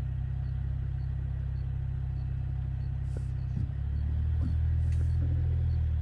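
A vehicle's engine running at a steady low drone, heard from inside the vehicle; about three and a half seconds in its note shifts and it gets slightly louder.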